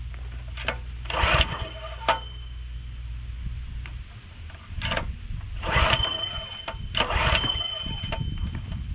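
Recoil pull-starter of a gas pressure washer's small engine being yanked several times, a rasping whir about a second apart, with the engine cranking but not catching because the fuel valve is still shut off.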